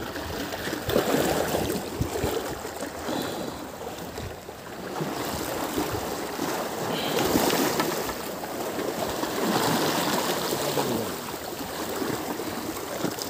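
Choppy sea water lapping and splashing against the platform, swelling louder now and then.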